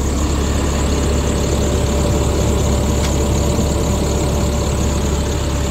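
Caterpillar 3126 inline-six diesel idling steadily, heard at the open rear engine compartment, with a deep, even drone and a steady mid-pitched whine over it.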